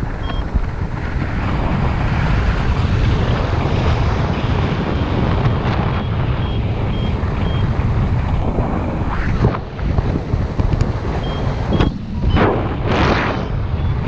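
Strong wind buffeting the camera microphone of a paraglider in flight: a heavy, steady low rumble with gusty surges near the end. Short, faint high beeps from a flight variometer come in a quick run around the middle and once more briefly later.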